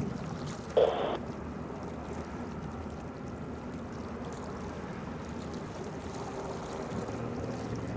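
Steady low rumble and hum of an Arleigh Burke-class destroyer passing on the water, with a brief burst of radio chatter about a second in.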